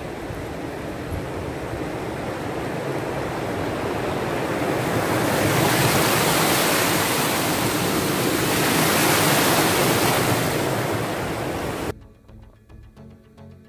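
Wind blowing across the microphone, a rushing noise that swells louder through the middle and cuts off suddenly near the end, where quiet music takes over.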